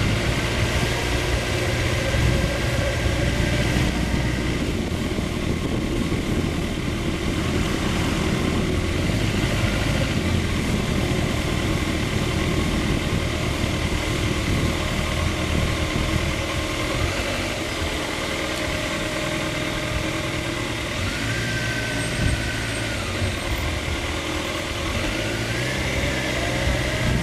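Motorcycle engine running at low speed through slow traffic, with bumps from the tyres riding over the raised lane-divider markers.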